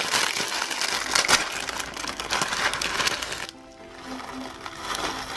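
Crinkling and crackling of plastic jelly-snack packaging being handled and opened, over background music. The crackling stops suddenly about three and a half seconds in, leaving quieter music.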